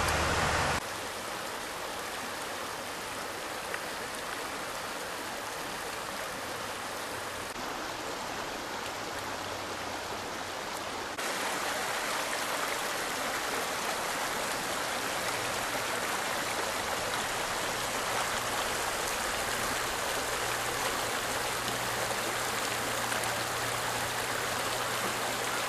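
Shallow stream rushing over rocks, a steady wash of running water; it drops in level about a second in and grows louder again about eleven seconds in, as the view changes.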